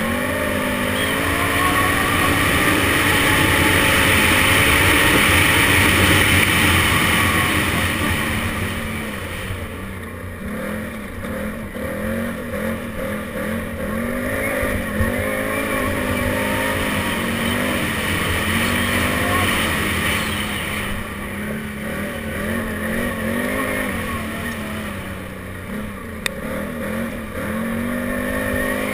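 Can-Am Renegade 800 ATV's V-twin engine under way, its revs rising and falling again and again with the throttle, over a steady rushing noise. Two short sharp clicks, about halfway and near the end.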